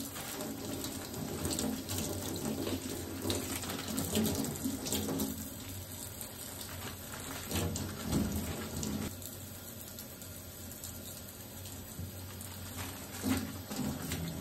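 Kitchen tap running into a stainless-steel sink, the stream splashing over hands and sheets of paper being soaked and squeezed under it.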